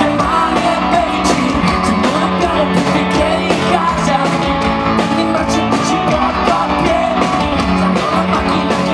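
Rock band playing: electric guitar, bass guitar and drums, with a male singer singing over them.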